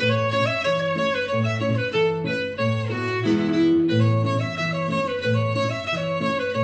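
Morin khuur, the Mongolian horsehead fiddle, bowing a lively folk melody over guitar bass notes in a steady rhythm.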